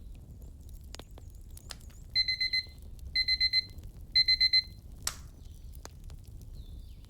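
Digital alarm-clock beeping from a pomodoro timer: three quick bursts of four or five high beeps, about a second apart, marking the end of a 25-minute study session. Fire crackling underneath, with one sharp pop shortly after the beeps.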